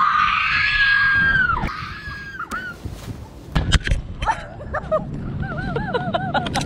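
A person screaming while leaping from a high platform onto a giant inflatable jump airbag: one long, high held scream, then a shorter second one. A few seconds in come several sharp knocks, and short wavering voice sounds near the end.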